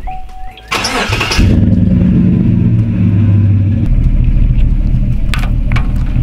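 Tow vehicle's engine being started: a short electronic chime, a brief burst of starter cranking about a second in, then the engine catches and runs at a fast idle that drops to a lower, steady idle about four seconds in. A couple of sharp clicks come near the end.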